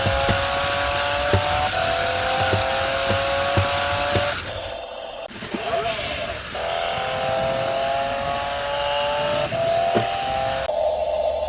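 Toy RC stunt car's electric drive motors whining while it is driven, the pitch creeping up over a few seconds and then dropping back as the car speeds up again, with scattered clicks from the car on the floor. The sound cuts out briefly about four and a half seconds in.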